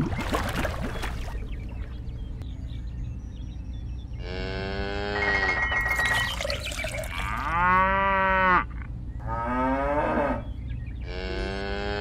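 A splash of water near the start, then cattle mooing four times, each call about a second long, over a low steady hum.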